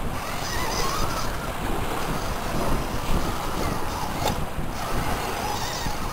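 Steady wind rumble on the microphone over the wash of surf, with one sharp click a little over four seconds in.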